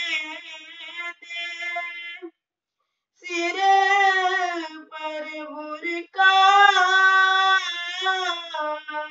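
A boy singing a shabad, a devotional hymn, unaccompanied in a high voice, with long held notes and wavering ornaments. He pauses for about a second between phrases a little after two seconds in.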